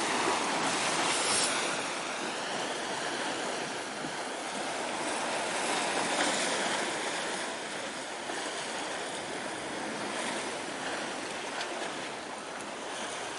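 Sea waves washing on the shore: a steady rushing that slowly swells and eases.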